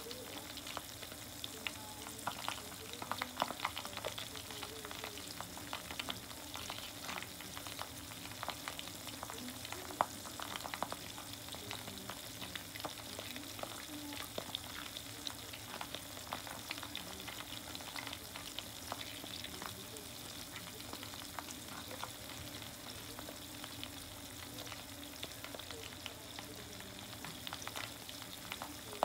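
Chicken karaage deep-frying in oil in an aluminium mess tin: a steady sizzle with constant small irregular crackles and pops, one louder pop about ten seconds in.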